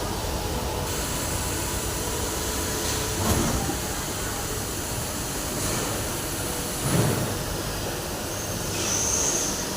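Molding machine running with a steady mechanical hiss and hum, and two short clunks about three and a half seconds apart.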